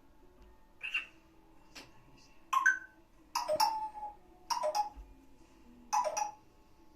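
African grey parrot making a string of about six short clicks and brief chirps, spaced a second or so apart.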